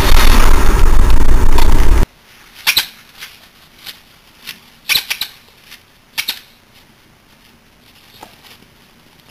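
Loud car-interior noise while driving, cut off abruptly about two seconds in. Then quiet, with a scattering of short, sharp squeaks, about eight over four seconds and one more near the end.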